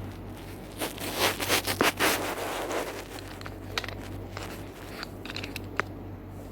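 Bosch Tassimo capsule machine brewing hot chocolate: a steady low pump hum, with a loud burst of hissing and sputtering about a second in that lasts a couple of seconds, then scattered crackles and clicks.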